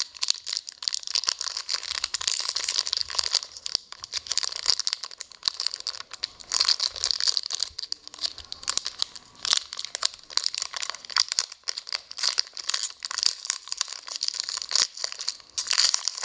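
Foil hockey-card pack wrappers crinkling in irregular crackling spurts as they are handled and torn open by hand.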